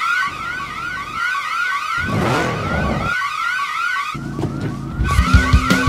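Electronic building burglar alarm sounding a rapidly repeating rising whoop, about three a second, with a higher warbling tone over it. Near the end, a louder run of sharp thumps comes in over the alarm.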